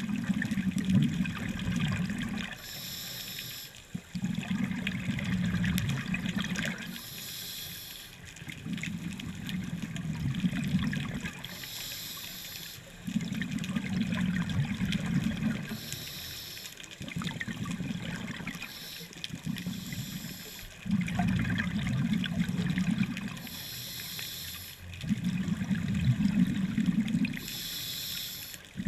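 Scuba diver breathing through a demand regulator: a short hiss on each inhale, then a longer gush of exhaled bubbles, about seven breaths at a steady pace of one every four seconds or so.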